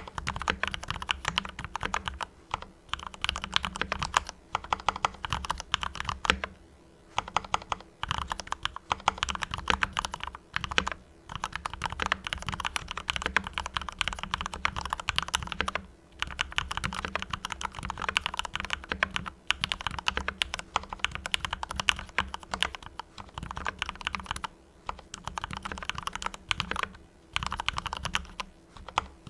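Fast, continuous typing on a Mars Pro mechanical keyboard with fully lubed Cherry MX Red linear switches, broken by a few short pauses.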